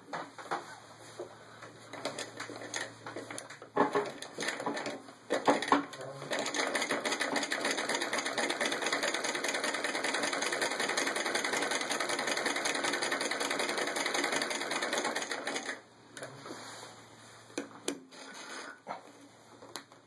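Antique Howe Model B treadle sewing machine stitching: scattered clicks and knocks for several seconds, then the machine runs at a fast even clatter for about ten seconds before stopping, followed by a few more clicks as the fabric is handled.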